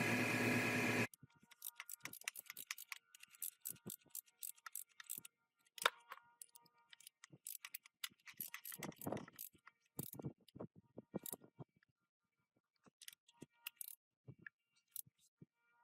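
A steady-running power tool cuts off suddenly about a second in. Then come scattered light clicks, taps and clinks of small metal parts being handled on a workbench.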